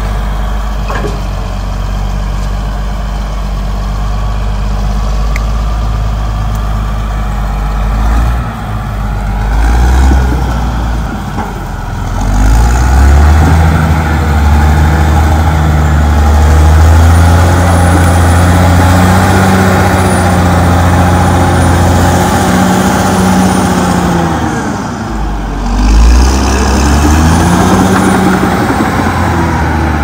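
Caterpillar D6R XL bulldozer's diesel engine running steadily at low revs. About twelve seconds in it revs up hard and holds high, with a faint high whine, as the blade works the earth. It drops back briefly near the end, then revs up again.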